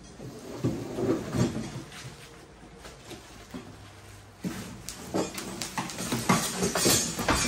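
A long, plastic-wrapped lift frame being slid and lifted out of a wooden crate: the plastic wrap crinkles, with irregular knocks and scrapes as the frame shifts. The handling is loudest over the last couple of seconds, ending in a heavy knock.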